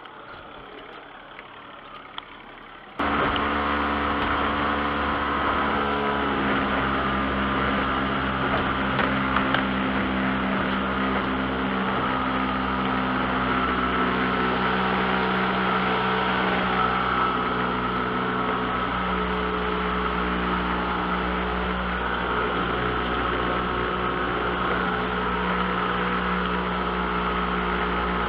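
Boat's outboard motor running steadily with the boat under way, starting abruptly about three seconds in.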